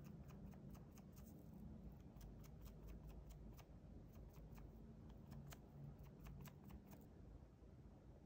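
Faint, light clicks and ticks in irregular clusters, several a second at times, stopping about seven seconds in, over a low room hum.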